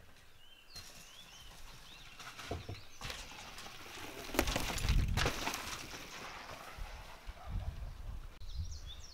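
A bicycle ridden fast down a dirt trail passes close by, its tyres rolling and rattling over the ground, loudest about five seconds in. Small birds chirp at the start and again near the end.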